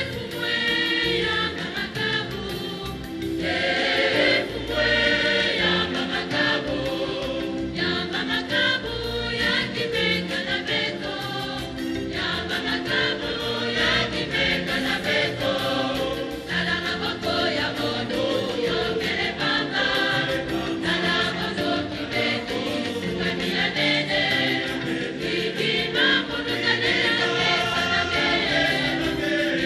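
A choir singing sacred music, with held notes that move in slow steps.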